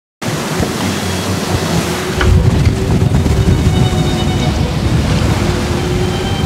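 Strong wind buffeting the microphone over the rush of the sea on a sailboat's deck in about 25 knots of wind, cutting in abruptly just after the start and growing heavier about two seconds in. Faint steady tones sound over it.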